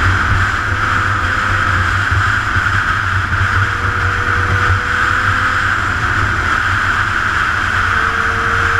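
Motorcycle cruising at a steady speed, its engine running evenly under a constant rush of wind over the camera.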